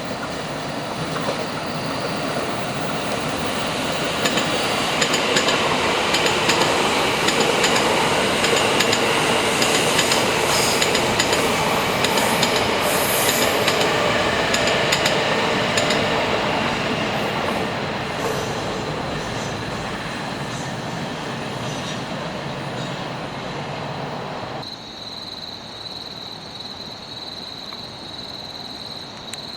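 Electric passenger train running along the rails, its wheel and track noise building to a peak and then fading away. About 25 seconds in, the sound changes abruptly to steady, high insect chirping.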